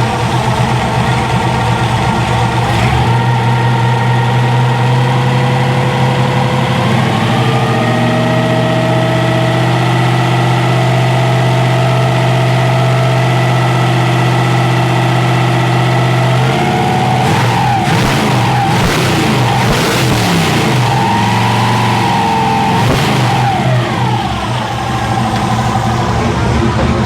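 454 big-block V8 running at a fast idle while its ignition timing and vacuum advance are being set. The idle speed steps up twice, holds steady, then drops about two-thirds of the way through, followed by a few rises and falls in engine speed.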